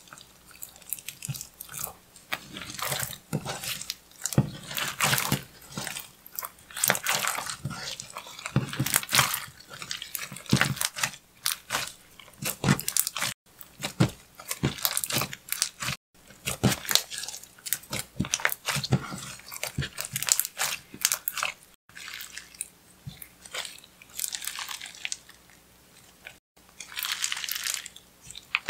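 Clear slime with eyeshadow powder mixed in, kneaded, squeezed and folded by hand, giving irregular sticky crackling and popping clicks. Near the end it is pulled and stretched out.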